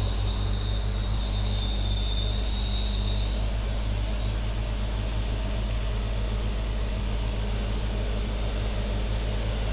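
Heavy truck's diesel engine running steadily under load as it climbs a steep gravel road. A thin, steady high whine sits above it and shifts up in pitch about three seconds in.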